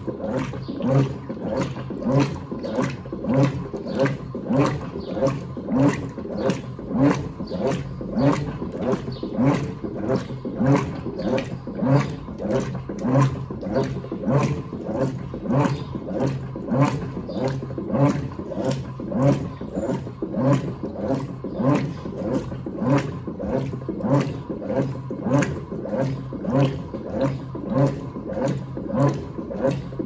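Electrolux Turbo AquaJet LTA15 direct-drive top-loading washing machine in its agitation cycle, the agitator swishing the wet load back and forth in an even rhythm of about one and a half strokes a second.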